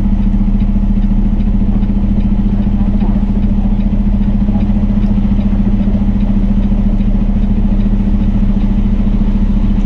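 Peterbilt 389 semi truck's diesel engine running steadily at low speed while the truck drives. It is a constant low drone, heard from inside the cab.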